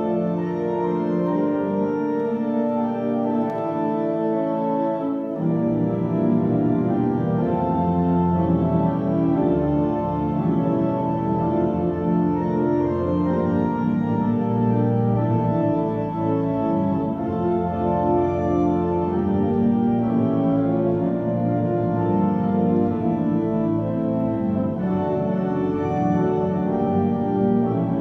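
Organ playing a slow piece in held chords. Deeper bass notes come in about five seconds in and carry on under the chords.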